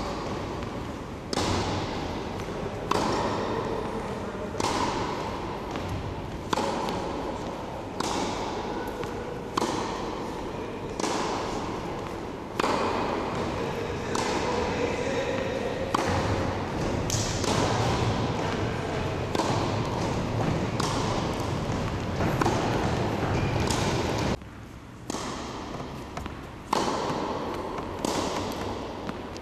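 Tennis ball struck by rackets in a rally, about one hit every second and a half, each hit echoing through a large indoor sports hall.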